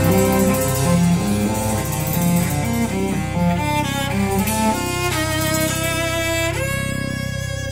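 Instrumental jazz-fusion music with bowed strings: a run of quickly moving notes that settles into a long held chord near the end, the level beginning to fall away.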